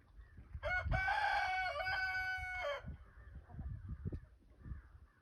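A rooster crows once, a single call of about two seconds starting near the first second. Soft rustling and light knocks of handling sit underneath.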